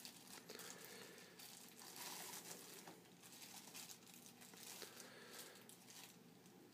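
Faint crinkling and rustling of plastic as gloved hands handle a Foley catheter kit, its plastic tray and wrappings, while a syringe is fitted to the catheter to test the balloon. The rustling is a little louder about two seconds in.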